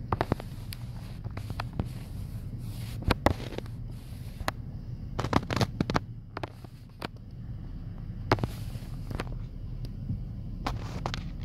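Car interior in slow traffic: a steady low hum from the engine and road. Over it come irregular sharp clicks and crackles.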